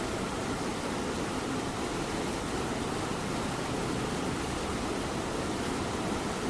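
A cat purring steadily over light rain falling outside, heard as an even, unbroken hiss and rumble.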